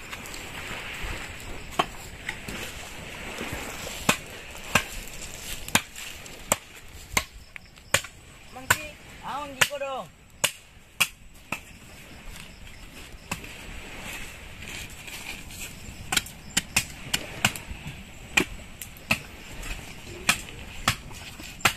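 Wood being chopped with a blade: sharp chopping strikes at an uneven pace, about one or two a second, with a short pause about halfway through.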